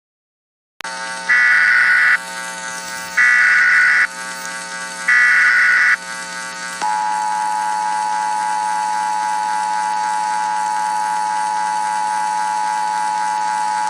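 Emergency Alert System tones: after a second's silence, three short bursts of warbling SAME header data about a second apart, then the steady two-tone EAS attention signal. A faint steady buzz runs underneath.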